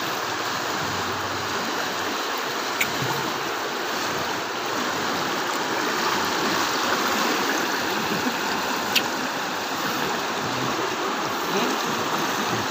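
Floodwater from the overflowing Masamba River rushing fast through a street, a steady rushing noise, with two brief clicks about three and nine seconds in.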